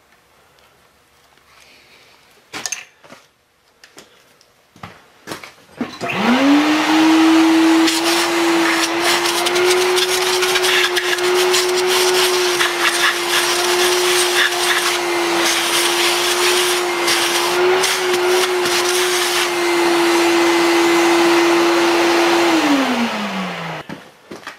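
Shop vacuum switched on about six seconds in, its motor whine rising quickly to a steady pitch under a loud rush of air as the hose sucks aluminum chips out of a casting's bore. Near the end it is switched off and winds down. A few sharp metal clicks and knocks of handling come before it starts.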